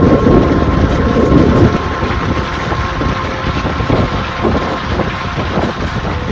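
Strong wind buffeting the microphone in the open, a loud continuous rumble that eases slightly about two seconds in.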